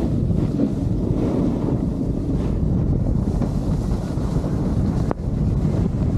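Wind rushing over the microphone of a snowboarder's body-mounted camera while riding downhill, a steady low rumble with the board sliding over the snow mixed in. The rumble dips briefly about five seconds in.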